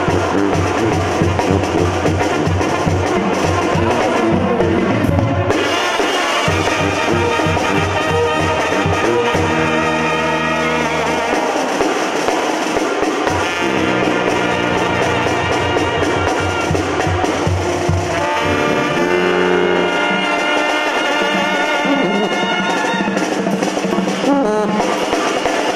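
Live banda sinaloense music. The tambora bass drum with its mounted cymbal and the chrome tarola drums keep a fast beat, and the brass section of trumpets and trombones plays over it, holding long chords from about eight seconds in.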